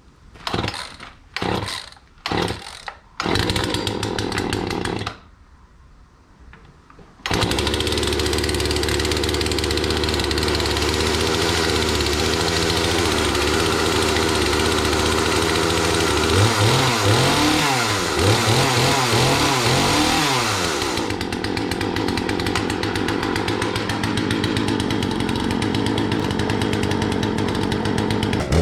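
Poulan Wild Thing two-stroke chainsaw being started: it fires in several short sputters, runs for a couple of seconds and dies about five seconds in, then catches again after a pause and keeps running. It is revved up and down several times about halfway through, then settles to a steadier idle.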